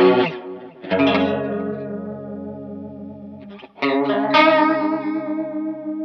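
Electric guitar chords on a Fender Stratocaster, played through a Native Audio Pretty Bird Woman chorus-vibrato pedal into a Vox AC30 amp. The chords are struck about a second in and again near four seconds, and each is left to ring and fade with a regular wavering from the pedal's modulation.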